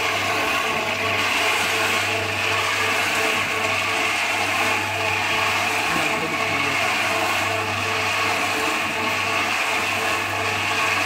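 Seed-treatment drum turning, with groundnut seeds tumbling inside it as they are coated with Vitavax fungicide powder: a steady rushing of seeds over a steady low hum.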